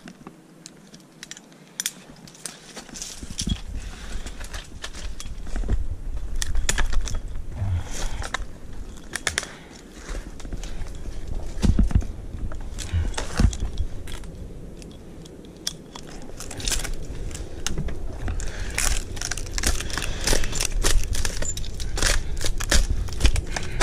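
Irregular crackling and clicking of dry palm fronds being handled, with small metallic clinks, over wind rumbling on the microphone from about three seconds in.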